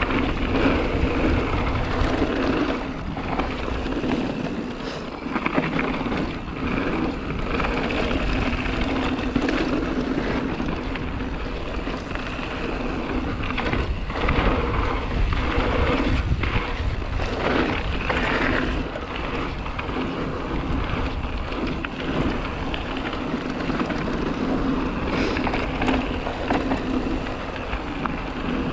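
Hardtail mountain bike riding down a dirt trail: a steady rumble of the knobbly tyres rolling over the ground, broken by frequent knocks and rattles as the rigid frame jolts over bumps.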